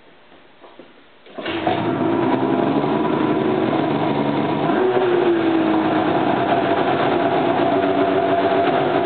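A Ski-Doo Summit X snowmobile's two-stroke engine, fitted with an aftermarket HPS exhaust can, starts about a second and a half in and then runs steadily and loudly.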